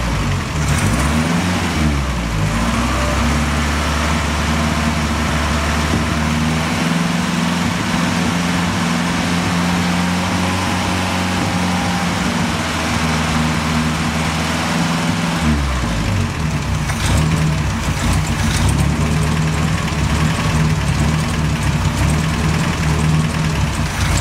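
BMW 2002's four-cylinder engine settling from a couple of blips of the throttle into a steady idle. About sixteen seconds in it drops back to a lower idle speed. This is the rough idle being diagnosed.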